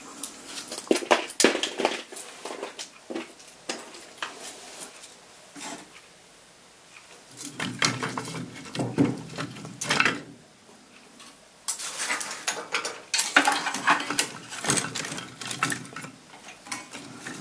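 Thin dry branches clattering and knocking against each other and the logs as they are laid by hand in a wood-burning stove's firebox: irregular clicks and knocks with two short lulls.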